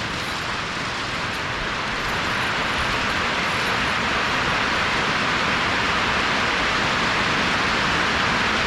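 Heavy rain coming down steadily, a dense even hiss that swells louder over the first couple of seconds.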